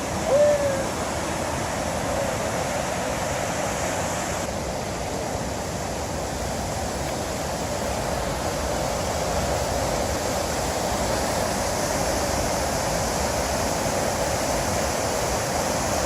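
Steady rushing roar of falling water, as from a waterfall. A single short whistled bird call comes about half a second in.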